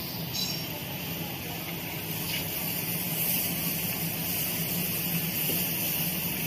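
PE protective film coating machine running steadily, a constant low hum with an even hiss of film travelling over its rollers.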